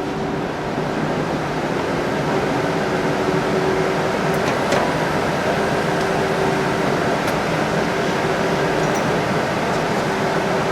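Steady mechanical hum and whir of factory-floor machinery, with a few light clicks near the middle.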